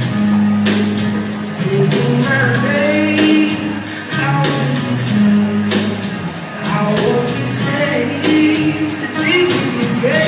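Recorded rock song playing, a stretch without sung words: guitar over sustained bass notes, with gliding melodic lines.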